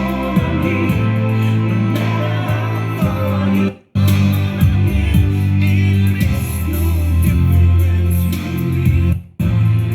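Aiwa CX-ZKR900HR stereo system playing guitar-led music with singing and a heavy bass line. The sound cuts out to silence for a moment about four seconds in and again near the end, then resumes.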